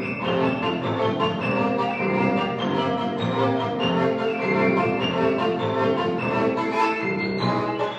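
A bowed string instrument and grand piano playing a fast tarantella, with quick running notes throughout.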